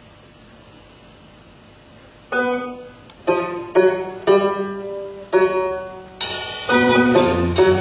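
Music for a tribal fusion dance begins about two seconds in after a hushed pause: a handful of single pitched notes, each struck sharply and dying away, then a fuller, louder sound from about six seconds.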